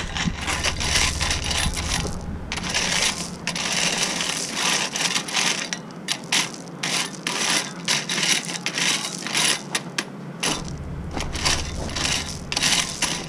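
Metal rake dragged back and forth through clear crushed-stone gravel, with irregular scraping and crunching strokes, spreading and levelling the stone base for permeable pavers.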